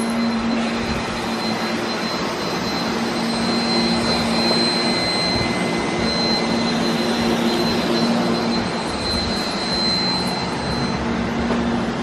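Several robot vacuums, a Shark and an Ecovacs Deebot among them, running at once: a steady whir of suction fans and brushes, with a low motor hum and a thin high whine over it.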